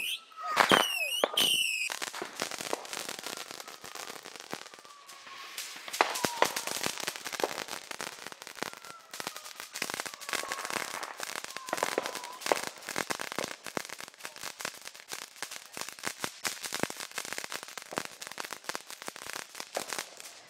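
Ground-level consumer fireworks going off. A few shrill falling whistles come in the first two seconds, then a dense crackling of many small pops and bangs carries on until it stops near the end.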